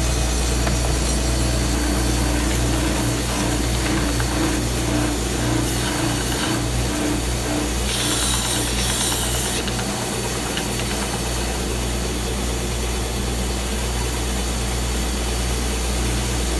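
Woodshop power tool motor running steadily with a low hum, with a brief hissing scrape about eight seconds in.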